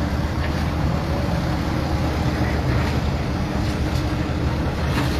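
Steady low engine rumble of running vehicles, with a faint steady hum and no distinct knocks or crashes.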